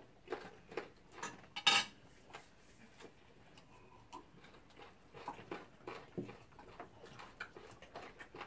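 Scattered light clinks and taps of plates, cutlery and glasses on a dining table, with one sharper clink a little under two seconds in.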